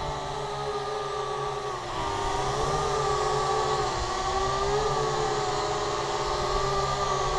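Syma X8HG quadcopter's propeller motors whining in flight, the pitch rising and falling as the throttle changes, over a low rumble.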